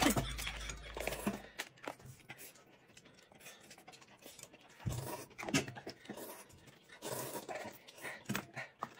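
Close-up eating sounds: noodles being slurped and chewed in short breathy bursts, with a quiet stretch in the middle.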